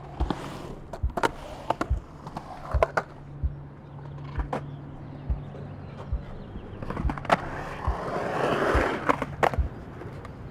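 Skateboard rolling on concrete: a steady rolling rumble with repeated sharp clacks, one or two a second, as the wheels cross seams and cracks. The rolling swells loudest near the end.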